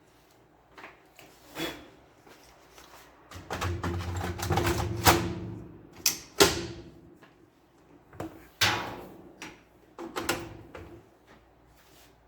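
Plastic and metal printer parts being handled: irregular clicks, knocks and scrapes, with a louder rough scraping stretch near the middle and a few sharp snaps.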